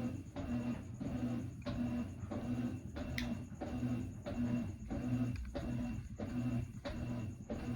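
Brastemp 17 kg top-load washing machine agitating a foamy load of whites. The motor hums and the water swishes in an even rhythm, breaking off briefly about every two-thirds of a second as the drive reverses.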